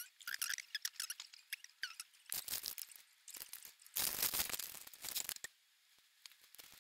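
Clear plastic bag of LEGO bricks crinkling and rustling as it is handled, with short squeaky rubs at first and a longer loud stretch about four seconds in as the bag is shaken and the pieces rattle inside; a few small plastic clicks follow.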